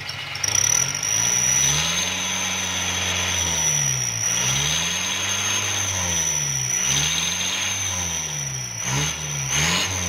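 Diesel Trooper SUV's engine revved up and down about four times, with a steady high-pitched whistle from a turbo whistler fitted on its tailpipe.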